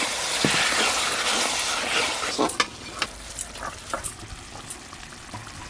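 Fish curry sizzling in a large wok while a spatula stirs it, with scattered clinks of the spatula against the pan. The hiss is loudest for the first two seconds or so, then dies down, leaving mostly the clinks.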